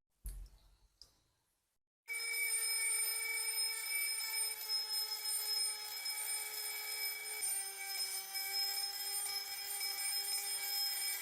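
A short knock, then about two seconds in a small electric motor starts with a steady high whine. Its pitch steps down slightly about halfway through, as if it comes under load.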